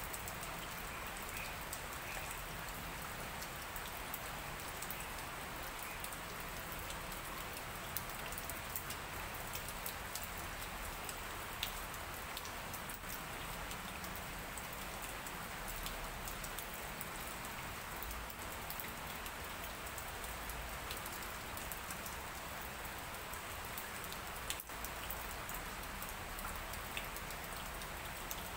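Steady light rain, an even hiss with scattered sharp ticks of individual drops.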